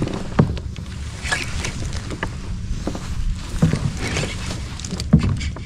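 Fishing kayak on the sea: a steady low rumble of water and wind with several sharp knocks against the hull or gear, the loudest shortly after the start and about five seconds in.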